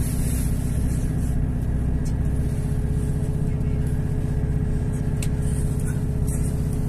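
Passenger train in motion, heard from inside the carriage: a steady low rumble with a faint steady hum above it and a few light clicks.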